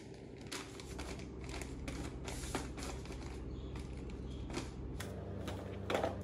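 Plastic-wrapped packets rustling and crinkling as they are handled and set down in a drawer, a string of short crinkles and light taps.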